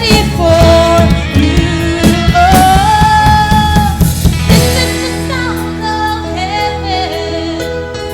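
A song with a lead singer over a band with drums. About halfway through the drums drop back, leaving held chords under the voice.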